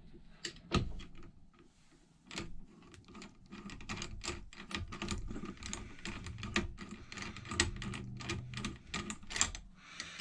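Irregular metallic clicks and taps as the drawbar of an Emco FB2 milling machine is unscrewed and an MT2 Morse-taper drill chuck arbor is freed and pulled out of the quill.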